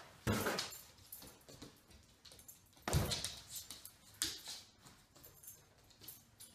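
Dog with its head stuck in a package blundering around on a laminate floor: irregular knocks, scrapes and rustles from the package and its paws, the loudest a thump about three seconds in.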